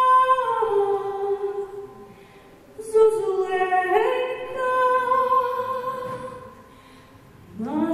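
A woman singing a Ukrainian folk song solo and unaccompanied: long held notes that step between pitches, broken by two short pauses, about two seconds in and again near the end.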